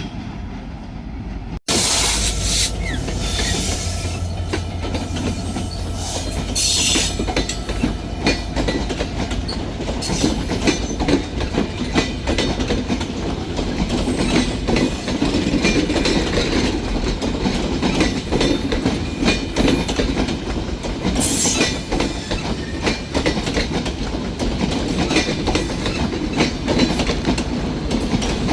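Train running close by, its wheels clattering over the rail joints in a dense run of clicks over a low rumble. The sound breaks off about a second and a half in and comes back louder.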